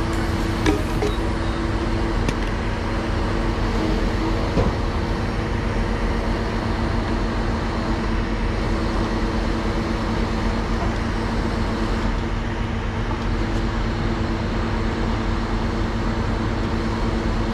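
Truck-mounted Palfinger knuckle-boom crane running, its truck engine and hydraulic pump giving a steady, even hum while the crane holds a bundle of steel rebar on its hook. A few faint clicks in the first few seconds.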